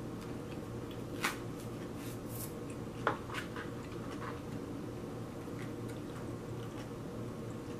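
A banana being peeled by hand: a few short snaps and crackles as the stem breaks and the peel tears away in strips, the loudest about three seconds in.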